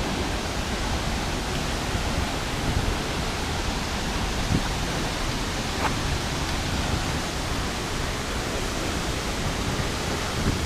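Steady rush of a large waterfall, an even noise with no breaks.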